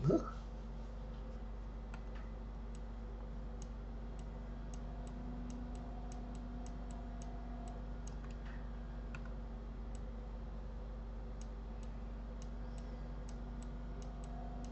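Faint, irregular clicks of a computer mouse, a few a second, over a steady low electrical hum.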